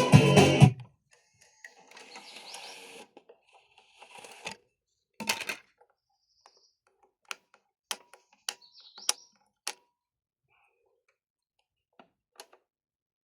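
Music from a Pioneer DEH-2220UB car radio cuts off under a second in. It is followed by scattered sharp clicks, several about half a second apart, and a few brief faint noises, typical of the head unit's buttons being pressed while it switches source.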